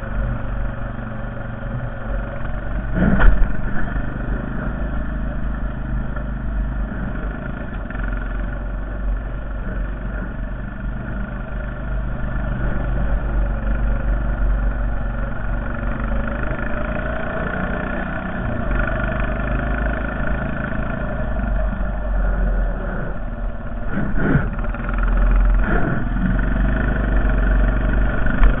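Honda Foreman 450 ATV's single-cylinder engine running steadily under throttle while plowing snow, rising and easing a little in places. A loud knock comes about three seconds in, and two more come near the end.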